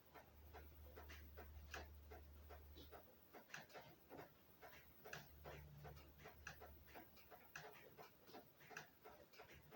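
Faint, irregular clicks and taps of small metal parts being handled while a 3/16 steel brake pipe is fitted into a flaring tool, with a low hum under part of it.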